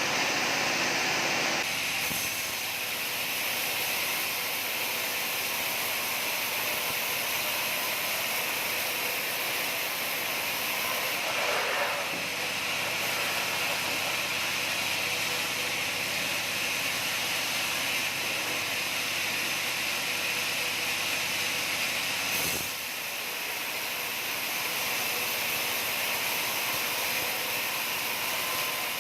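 Sawmill machinery running steadily, a loud continuous noise that shifts slightly a couple of times, with a single sharp click about two thirds of the way through.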